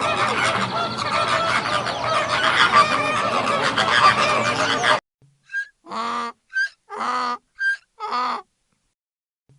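A flock of domestic fowl calling over one another, cut off abruptly about halfway through. After a short gap, one bird calls three times about a second apart, each time a short high chirp and then a longer, fuller call. Near the end it is silent.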